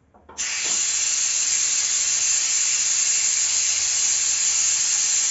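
Steam hissing steadily out of a pressure cooker's valve as the pressure is released after cooking, starting suddenly just under half a second in.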